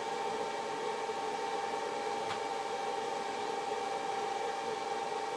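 Steady fan or motor hum, even and unchanging, with a faint click about two seconds in.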